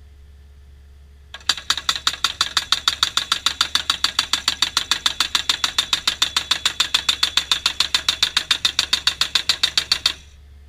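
Hydraulic fence post thumper on an excavator arm hammering a steel fence post into the ground. Rapid, even metallic blows come about five a second, starting about a second and a half in and stopping sharply near the end.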